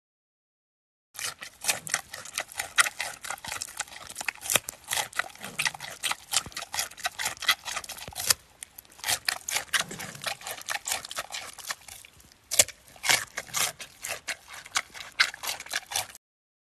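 Giant panda chewing a raw carrot: a rapid run of wet, crunchy bites and chews, with a brief pause about eight seconds in and another near twelve seconds.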